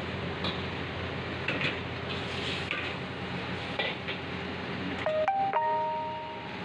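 Steel ladle clinking against a wok over the steady rush of a gas wok burner. About five seconds in, a short electronic chime of three rising notes, the last held for about a second.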